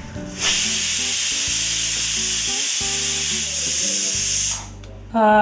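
Pressure cooker whistling: steam hisses out steadily under the weight valve for about four seconds, then stops abruptly. This is the release that marks the cooker reaching full pressure.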